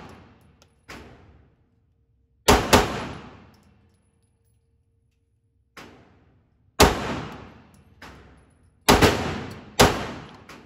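Gunshots: about six loud shots in irregular pairs and singles, each trailing off in a long echo, with a few fainter shots in between.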